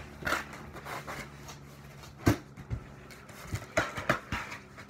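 Cardboard box being handled and packed: flaps folded and contents pushed in, with scattered knocks and rustling. One sharp knock comes a little over two seconds in, and a cluster of knocks follows near the end.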